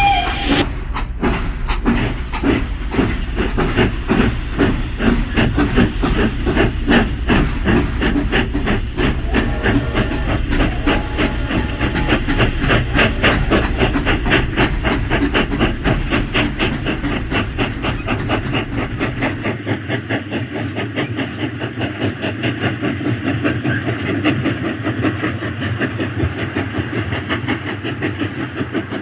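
Battery-powered toy steam train running on its track, with a rapid, rhythmic chuffing hiss.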